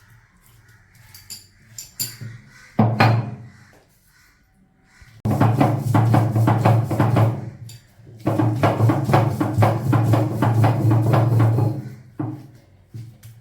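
Background music with a quick, steady percussion beat, starting about five seconds in after a near-quiet stretch with a single hit, with a short break partway through.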